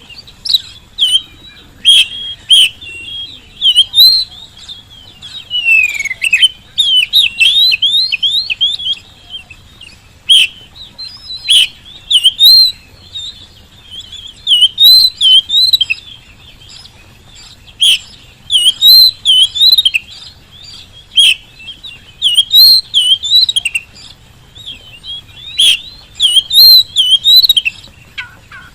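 Oriental magpie-robin (kacer) singing loudly and continuously ('gacor'). Its song comes in phrases of rapid sweeping whistled notes and sharp clicks, one to two seconds long, with short pauses between.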